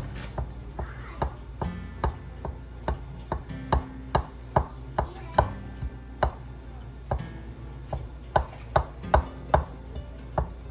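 The handle of a small spoon being jabbed down through a baked cake, knocking against the bottom of the glass baking dish with each poke: sharp separate clicks, about two a second at an uneven pace.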